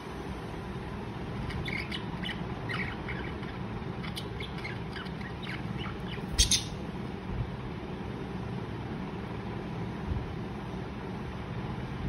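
Budgerigars giving short, soft chirps through the first half, with one louder, sharper squawk about six and a half seconds in, over a steady low background rumble.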